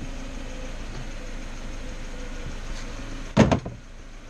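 A quick cluster of knocks on plastic about three and a half seconds in, as a toddler is set down into a plastic ride-on toy truck, over a steady low background hum.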